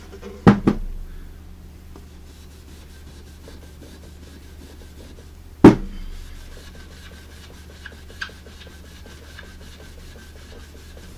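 A cloth rubbing over the finished wood of a radio cabinet panel. Two sharp knocks close together come near the start, and one louder knock about halfway through.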